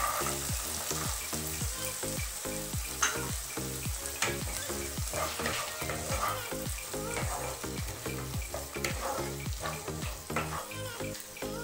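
Green peas sizzling as they fry in a tomato masala in mustard oil in a nonstick kadai, stirred with a wooden spatula that scrapes and taps against the pan now and then.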